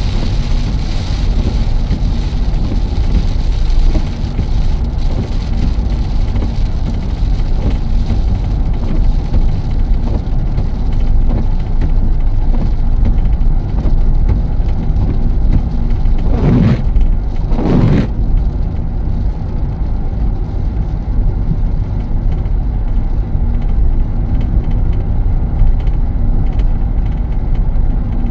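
Car driving along the road: a steady low rumble of road and engine noise, with two short louder surges about a second and a half apart roughly two-thirds of the way in.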